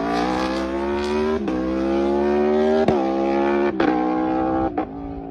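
Superbike engine and exhaust accelerating hard through the gears: the engine note climbs steadily, broken by four quick upshifts, and drops in level after the last one near the end.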